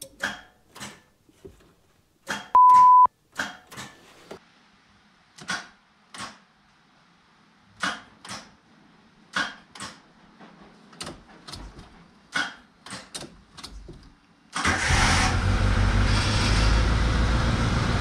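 Suzuki Samurai starter clicking repeatedly on turns of the key without the engine turning over, the classic clicky starter caused by a worn ignition switch. A steady beep sounds once about two and a half seconds in, and about fourteen and a half seconds in the engine starts and keeps running.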